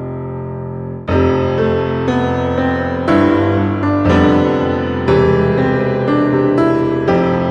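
Background piano music: a held chord, then new notes or chords struck about once a second from about a second in.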